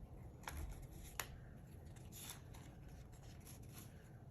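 Sheets of paper and card pieces being handled and shuffled together, light rustling with a few short ticks, the sharpest about a second in.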